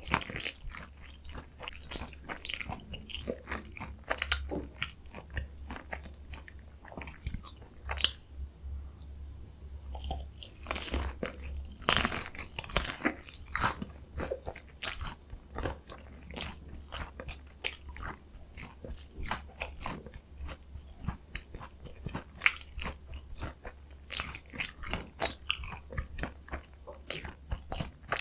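Close-miked crunching and chewing of a potato-coated mozzarella corn dog: crisp, irregular bites and chews in quick succession. A steady low hum sits underneath.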